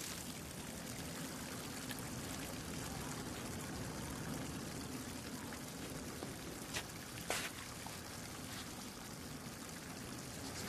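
Steady trickle and splash of liquid into wall urinals, with two small knocks a little past the middle.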